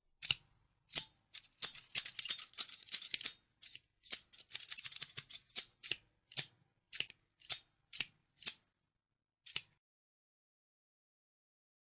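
Scissors snipping: quick runs of rapid, crisp snips in the first half, then slower single snips about half a second apart, stopping about two seconds before the end.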